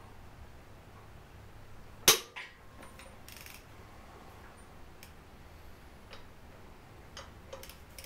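Hand tools working the 12 mm twelve-point flywheel bolts of a Mercedes OM617 diesel engine: one sharp metallic crack about two seconds in, by far the loudest sound, followed by scattered lighter clicks and clinks.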